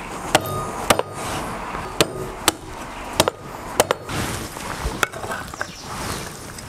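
Cleaver chopping a whole free-range chicken into pieces on a thick wooden chopping block: about seven sharp chops, spaced unevenly, over the first five seconds.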